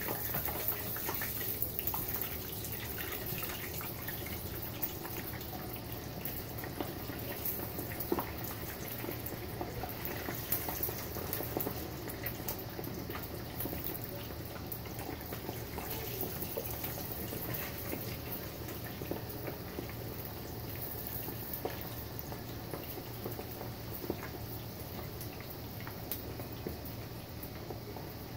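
Raw potato slices deep-frying in a pot of hot oil: a steady crackling sizzle of bubbling oil, a little louder in the first few seconds.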